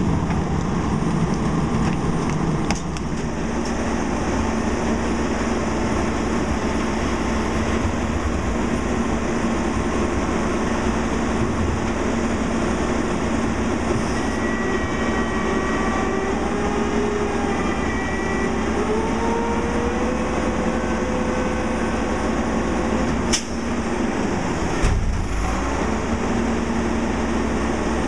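Crane Carrier garbage truck with a Heil PowerTrak rear-load packer, its diesel engine running steadily as the packer's hydraulics work after a cart dump. A whining tone climbs slowly in pitch about halfway through, and two sharp metal knocks come near the end.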